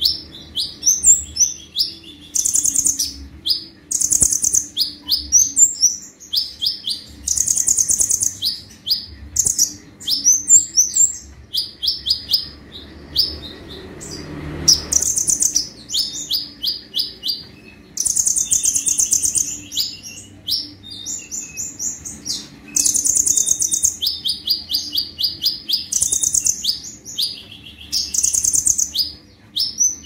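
Male kolibri ninja (konin) sunbird singing hard: rapid-fire bursts of very high, staccato notes and fast trills, the 'tembakan' (shooting) phrases prized by bird keepers, repeated every second or two.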